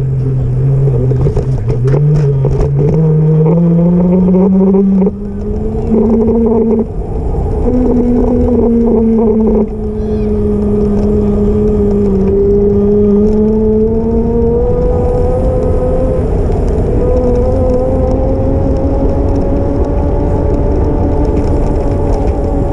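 Electric bike motor whining while riding: its pitch climbs over the first few seconds as the bike speeds up, then holds roughly level with small dips and rises. A steady low rumble runs underneath.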